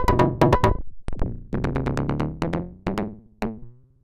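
Eurorack modular synth voice: an oscillator cross-modulated with a self-oscillating Instruo i-o47 filter, pinged through a low pass gate, playing rapid plucked notes, about four to five a second, each decaying quickly, with a harsh, distorted cross-modulated tone.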